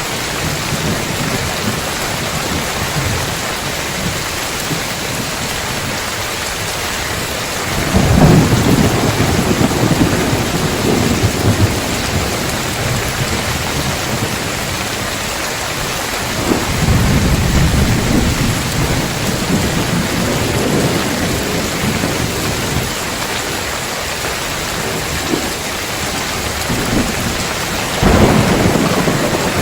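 Heavy rain pouring steadily on roof tiles, with thunder rumbling three times: about a quarter of the way in, around the middle and near the end, the first and last coming in suddenly.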